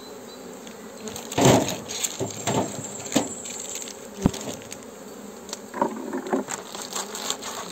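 Honeybees buzzing in a steady hum over an open hive, with a few short knocks and rustles from the hive being worked, the loudest about a second and a half in and a sharp click a little after four seconds.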